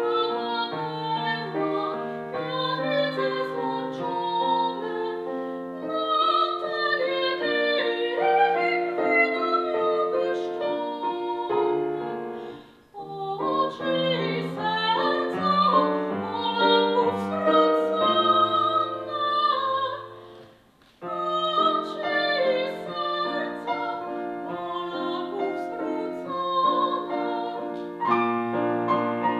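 A woman's classical singing voice, operatic in style with a wavering vibrato, performing an art song to grand piano accompaniment. The sound drops away abruptly twice, about a third and about two-thirds of the way through, then picks up again.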